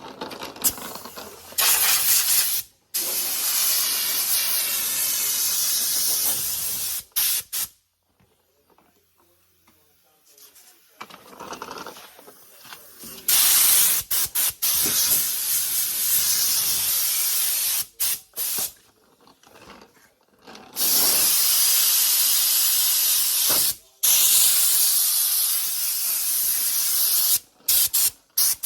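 Compressed-air tool hissing in several bursts of a few seconds each, stopping and starting abruptly, on a truck bedside being prepped for primer.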